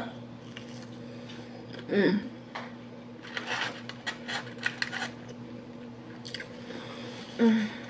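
Close-up eating sounds: chewing fried food with a run of small crisp clicks and rustles in the middle as a biscuit is picked up. There are two short hummed vocal sounds, one about two seconds in and one near the end.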